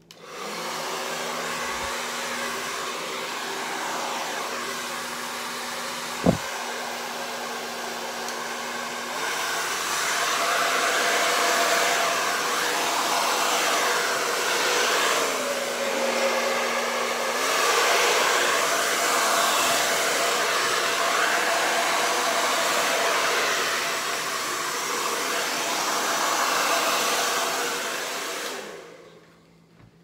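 Hair dryer blowing acrylic paint across a canvas, started on its low setting and running steadily, then louder from about nine seconds in; it shuts off near the end. A single sharp click about six seconds in.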